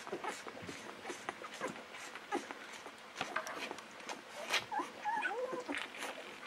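Newborn golden retriever puppy nursing from a feeding bottle: irregular wet sucking and smacking clicks at the teat, with short, high, wavering whimpering squeaks about three seconds in and again around five seconds.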